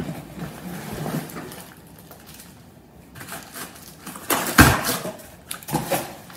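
Tool packaging being handled: plastic wrap and cardboard rustling as power tools are lifted out of the box. The loudest part is a rustle with a dull knock about four and a half seconds in, then another short rustle.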